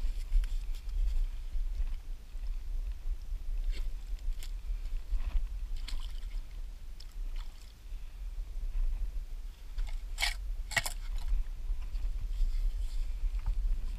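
Digging in wet tidal sand and mud with a short shovel and gloved hands: scattered crunches, scrapes and splashes of water in the hole, with two sharper scrapes a little after ten seconds in, over a steady low rumble.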